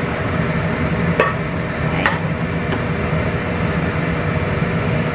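A steady low hum of background machinery, with a few light clinks about one and two seconds in as pumpkin pieces are set onto a ceramic plate.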